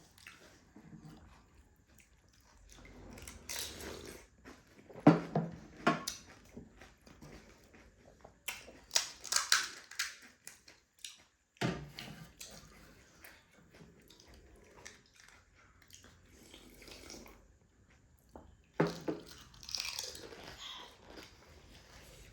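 Pani puri (gol gappe) being eaten: crisp puri shells crunching and being chewed in several bouts, with quieter pauses between mouthfuls.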